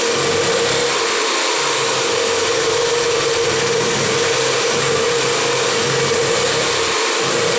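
Small 1 kVA petrol generator running at a steady speed: a constant engine drone with a strong, even hum, showing the repaired generator runs smoothly.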